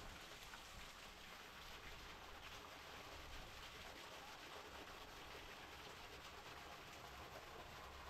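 Faint, steady splashing and pattering of falling water from the waterfall onto stone and mud.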